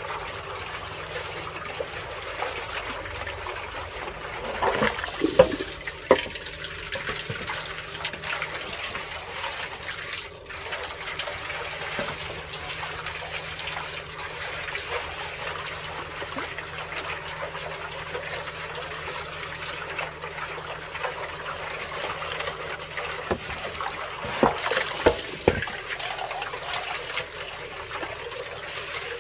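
Water trickling steadily, with a few short knocks about five seconds in and again later.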